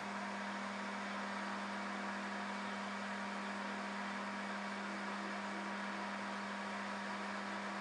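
Lathe running steadily, spinning a half-inch end mill at 600 RPM in its three-jaw chuck while it takes a light milling cut in mild-steel crank blanks. It is a steady hum with a constant low tone over an even hiss.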